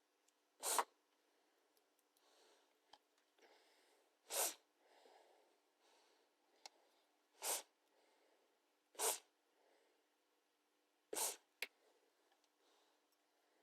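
Insulated wire being worked by hand: five short rasping, zip-like strokes a couple of seconds apart, with faint rustling between them.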